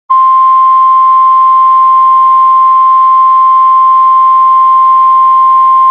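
NOAA Weather Radio warning alarm tone: a single loud, steady, high-pitched tone held without a break. It signals that a warning message follows.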